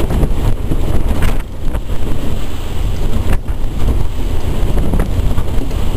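Wind buffeting the microphone, a loud, steady low rumble, with a few light knocks.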